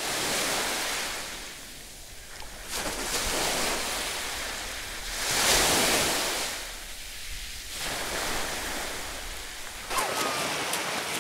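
Small sea waves washing on a beach, the surf rising and falling every few seconds. Near the end come quick splashes of feet running through shallow water.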